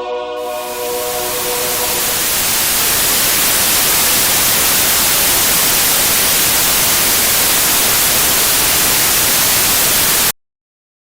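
Loud TV static, the hiss of a station gone off the air, swelling in as choir singing fades out and cutting off suddenly about ten seconds in.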